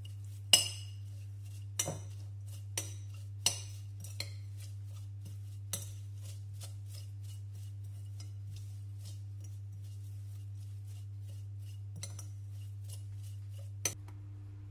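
A metal spoon clinking against a glass bowl: several sharp clinks in the first six seconds, the loudest about half a second in, then a run of faint quick clicks as it stirs the herb mixture, and a last clink near the end. A steady low hum runs underneath.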